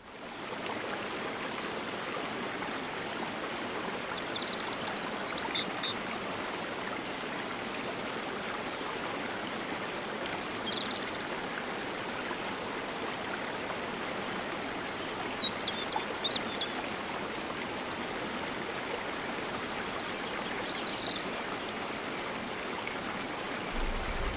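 Small stream cascading steadily over rocks, with four short bouts of high chirping calls.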